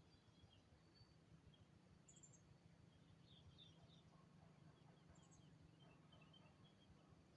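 Near silence with faint, scattered bird chirps over a low steady hum.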